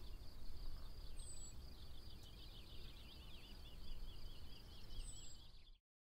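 Countryside ambience: birds chirping in quick repeated sweeping notes over a low steady rumble, cutting off suddenly near the end.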